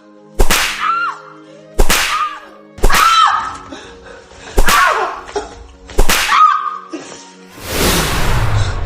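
Five sharp whip strikes one to two seconds apart, each followed by a short cry, over background music. Near the end a swelling whoosh builds.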